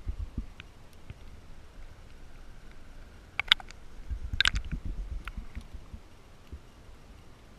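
Water sloshing and knocking on an underwater camera's housing, heard muffled and low, swelling about four seconds in as the camera breaks the surface and dips back under. A few sharp clicks come just before and during that surge.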